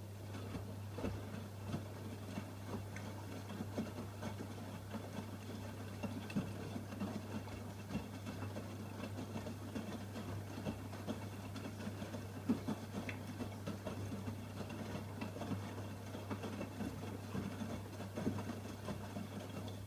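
AEG Öko-Lavamat front-loading washing machine with its drum turning in the wash phase: wet laundry tumbling and water sloshing as a run of irregular soft knocks and patter over a steady low hum.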